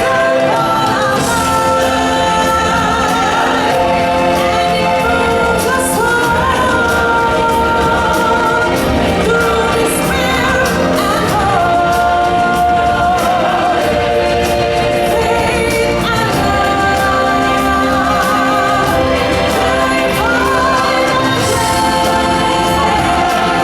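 Stage-show music: a group of singers holding long, wavering notes over a full band accompaniment, loud and unbroken.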